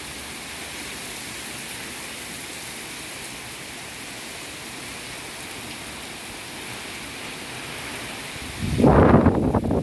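Heavy rain pouring steadily on a concrete patio and the trees around it. Near the end a much louder, rough low rumble breaks in over the rain.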